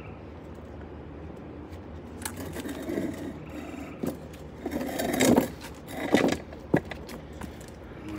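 Irregular plastic clicks, crackles and scrapes from a plastic seedling cell tray being handled and set down, loudest for a couple of seconds past the middle with one sharp click, over a steady low hum.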